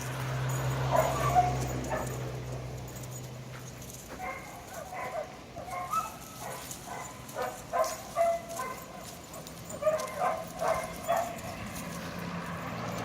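A dog barking in a rapid series of short barks from about four seconds in, with a brief pause around the middle.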